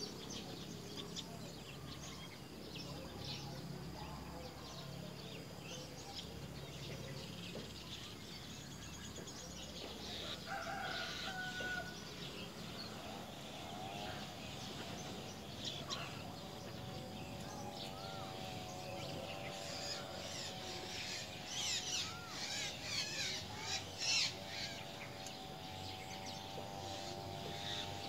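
Bird calls at a greater coucal nest: shrill, quickly wavering squeals, the loudest sounds here, come in a cluster in the latter half, when the coucal nestlings gape and beg for food. A long wavering call runs under them through the second half, over a steady outdoor hiss.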